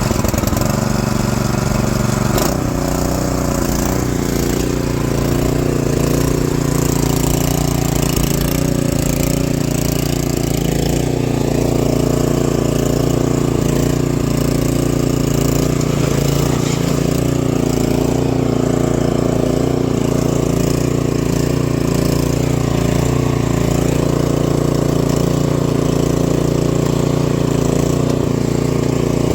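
Benchmark 24-inch snowblower's engine running steadily at full throttle, just started cold with the choke on. There is a brief knock about two and a half seconds in.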